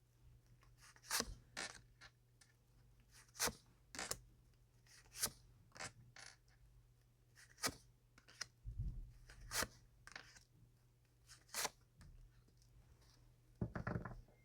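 Tarot cards being drawn and laid on a table: a scattering of short, faint card snaps and slides, about one a second, over a steady low hum.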